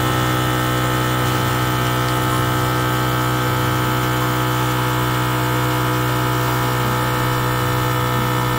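FoodSaver vacuum sealer's pump running with a steady hum, drawing the air out of a clamped bag before the heat seal.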